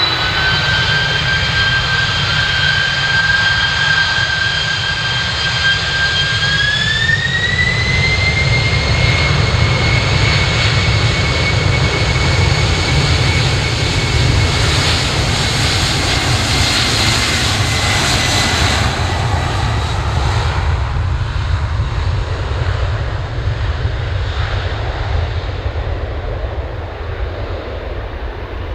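Boeing 747-400's four turbofan engines spooling up for takeoff: a steady whine over a deep rumble, the whine stepping up in pitch a few seconds in as thrust comes up. The sound is loudest as the jet rolls past, about halfway, then fades as it heads down the runway.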